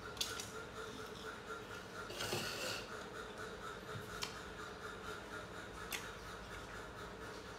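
Faint handling noises: a few light clicks and a brief rustle a little over two seconds in, over a steady low hum.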